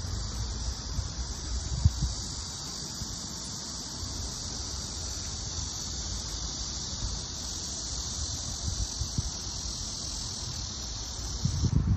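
Cicadas buzzing in a steady, high-pitched drone that stops abruptly near the end, over a low rumble of wind on the microphone.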